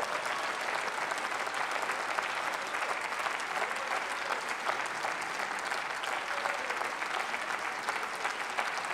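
Many people clapping their hands in sustained applause, holding an even level throughout.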